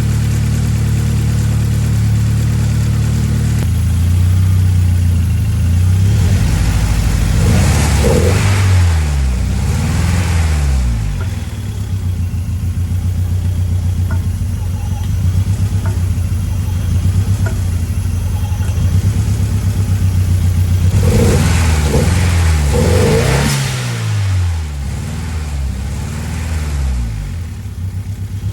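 Ford Escort RS Cosworth's turbocharged four-cylinder engine running at idle, then revved in two spells, each a few rises and falls back to idle. It carries an added noise from the front of the engine, which the owner suspects is a ruined pulley bearing.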